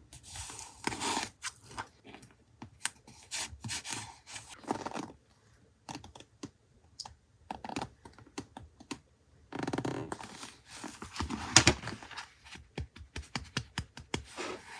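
Paper and journaling supplies being handled: a run of light clicks, taps and paper rustles, with a near-quiet pause in the middle, then a denser rustle and one sharp click about two-thirds through.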